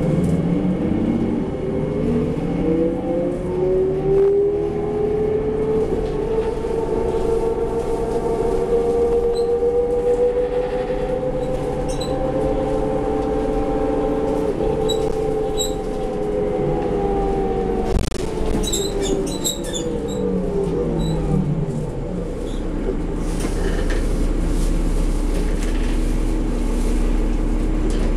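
Drivetrain whine and engine of a 2004 New Flyer D40LF bus with a Cummins ISL engine and ZF Ecomat automatic, heard from inside the cabin: the whine rises smoothly in pitch over the first several seconds as the bus gathers speed, holds while it cruises, then falls away as it slows. A sharp click and a few small rattles come about two thirds of the way through.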